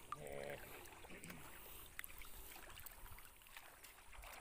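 Very quiet outdoor ambience with a faint hiss, a brief faint distant voice at the very start and a few faint ticks.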